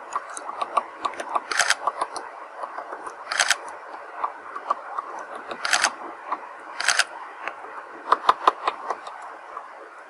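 Male downy woodpecker pecking and prying at bark on a branch: irregular sharp taps, with four louder, brief bursts of rapid clicking and a close run of strong taps near the end.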